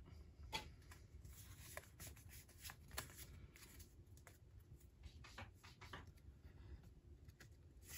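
Faint rustling and soft clicks of Pokémon trading cards being handled and sorted, with a few scattered light ticks.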